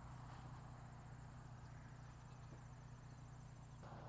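Faint rural field ambience: insects, likely crickets, chirping in a fast, even high-pitched trill over a steady low hum and a soft hiss. Near the end the chirping drops out and the hiss gets louder.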